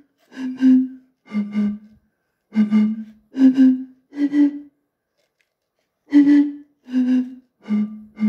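Breathy, flute-like hoots blown across the mouths of three plastic soda bottles holding different amounts of water, playing a simple melody. It comes as short notes on three low pitches in two phrases, with a pause of about a second and a half halfway through.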